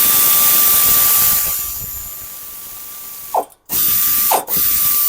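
Cordless power tool running in three spurts to spin out bolts: one long run of about three seconds that fades off, then two short bursts, each with a steady high motor whine and starting and stopping abruptly.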